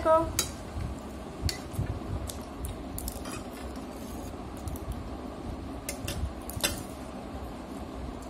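Metal spoon clinking and scraping against a plate as fried rice is scooped up, a few scattered clinks, with quiet chewing in between.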